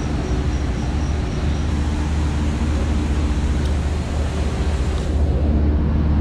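Ferry's engines and onboard machinery running underway: a steady deep drone with a level hum over a rush of noise.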